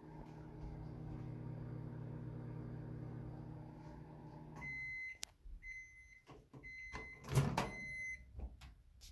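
Microwave oven running with a steady hum that stops about halfway through, followed by four beeps about a second apart signalling the end of the cycle. A clunk comes during the third beep.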